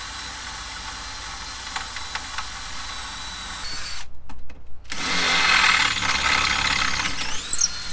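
Cordless drill boring a small pilot hole through a narrowboat's steel door. It stops briefly about four seconds in, then drills on louder into the metal and winds down near the end.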